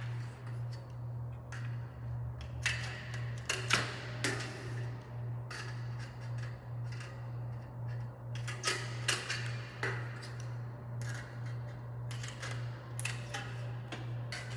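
Aviation tin snips cutting the flanges of light-gauge steel studs: irregular sharp metallic snips, roughly one a second, over a steady low hum.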